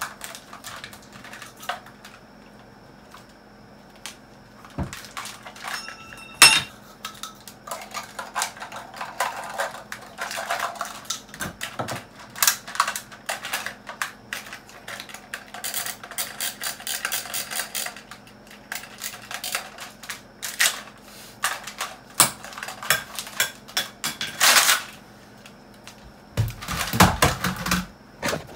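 Toy electric M4-style rifle clicking and rattling in quick irregular bursts as it is handled and worked, over a faint steady hum.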